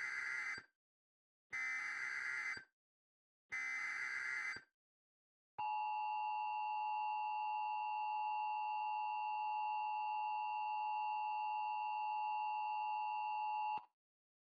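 Emergency Alert System SAME header: three warbling data-tone bursts of about a second each. They are followed by the two-tone EAS attention signal, held steady for about eight seconds and then cut off abruptly.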